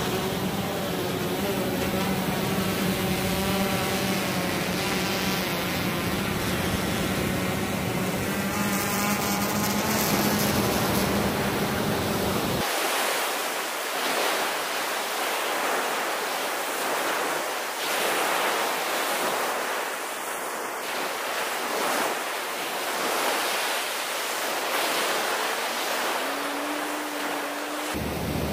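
The fishing drone's propellers hum steadily over crashing surf. About halfway through, the hum stops abruptly and only waves breaking on the beach remain. A short, higher hum comes near the end.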